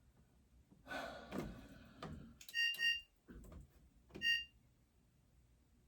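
GE dryer's electronic control panel beeping twice in quick succession, then once more about a second and a half later, in answer to button presses. Clicks and knocks of the buttons and panel being handled come before the beeps.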